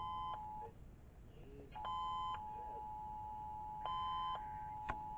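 Emergency Alert System two-tone attention signal coming from a radio receiver: a steady pair of tones that cuts out for about a second and resumes, with three short, brighter beeps about two seconds apart laid over it.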